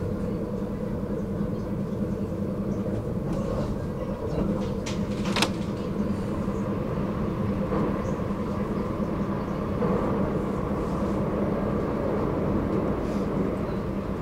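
Commuter train running, heard from on board: a steady rumble with a constant hum, and a couple of sharp clicks about five seconds in.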